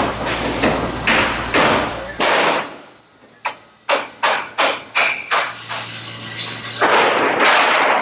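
Hammer blows on steel formwork shoring: about seven sharp, ringing strikes in quick succession, roughly three a second, between rougher noisy bursts at the start and near the end.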